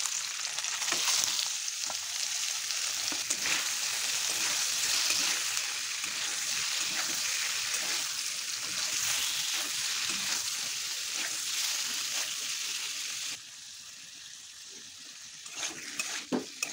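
Paneer cubes sizzling as they fry in hot oil in a metal kadai, stirred with a spatula that scrapes and taps the pan. The sizzle drops abruptly to a quieter level about thirteen seconds in, with a few spatula knocks near the end.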